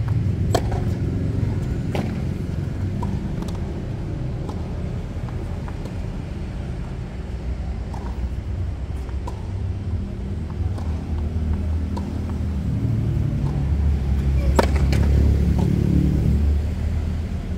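Tennis balls struck by rackets and bouncing on a hard court: a few sharp, separate pops, the clearest near the start and about fifteen seconds in. Under them runs a steady low rumble that swells near the end.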